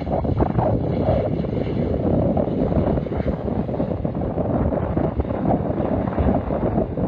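Wind buffeting the microphone over the steady rumble of a jet airliner.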